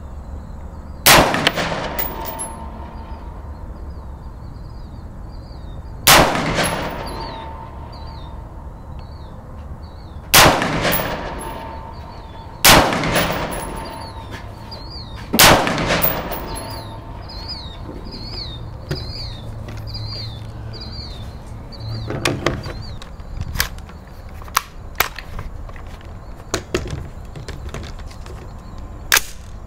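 Del-Con AR-15 Sport semi-automatic rifle firing five single shots a few seconds apart, each followed by a ringing decay. The rifle feeds each round without a hitch, its magazine loaded with the bolt open.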